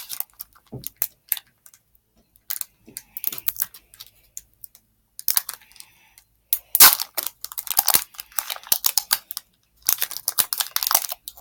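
Foil Pokémon booster pack wrapper being torn open and crinkled in irregular bursts with short pauses, the loudest rip about seven seconds in.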